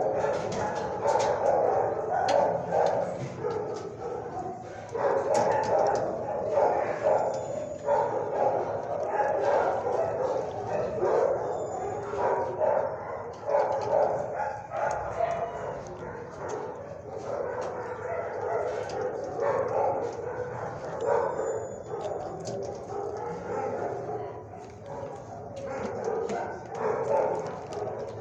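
Many dogs barking at once in an animal shelter's kennel block, a steady din that never lets up.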